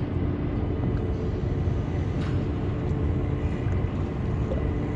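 A steady low mechanical rumble with a constant hum.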